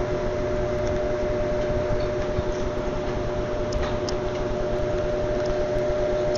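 Steady mechanical hum holding two constant tones over a broad noise bed, with a few faint ticks.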